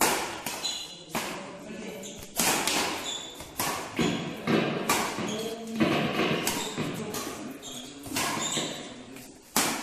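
Badminton rackets hitting the shuttlecock back and forth in a fast doubles rally: a string of sharp smacks, roughly one every half second to a second, echoing in a large hall.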